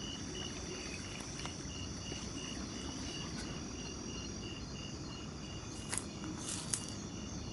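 Night insects: a cricket chirping in an even pulse about three times a second over a continuous high-pitched insect drone. Two brief sharp clicks come about six seconds in.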